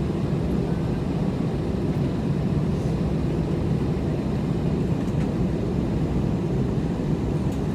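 Steady low rumble inside the cabin of an airliner on the ground after landing.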